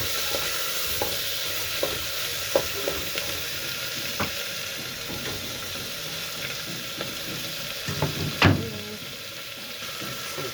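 Food sizzling in a frying pan while it is stirred, with scattered light knocks of the spatula against the pan and one louder clank about eight seconds in.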